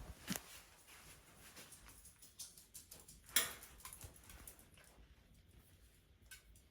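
A small dog's claws clicking and pattering faintly on a hard floor as it walks, in scattered light taps, with one sharper tap about three and a half seconds in.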